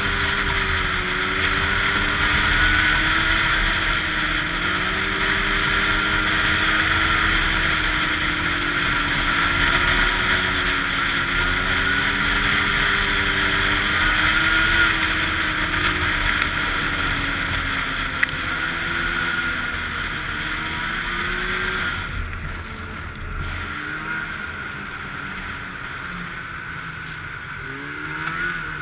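Snowmobile engine running along a trail, its pitch wavering up and down with the throttle over a steady rush of wind noise. About 22 seconds in the rush drops away as the sled slows, and near the end the engine revs up again.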